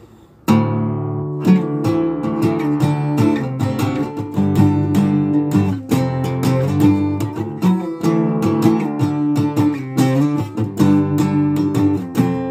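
Acoustic guitar playing a rhythmic riff of strummed chords, starting abruptly about half a second in.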